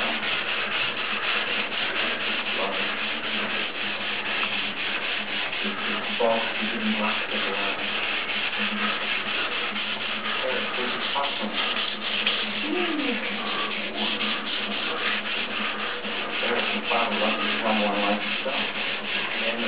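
Wet sandpaper rubbed by hand in steady back-and-forth strokes over gel coat on a fiberglass boat mold, lubricated with soapy water: a continuous scratchy hiss. The sanding is working out the 80-grit scratches left in a gel coat repair.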